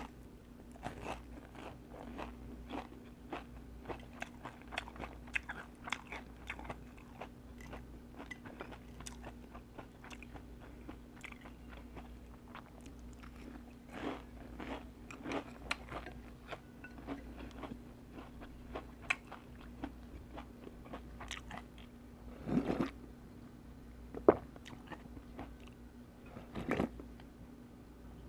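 A person chewing and biting food close to the microphone: many short, sharp mouth clicks, coming thickly for the first half and more sparsely later, with a few louder bites in the second half.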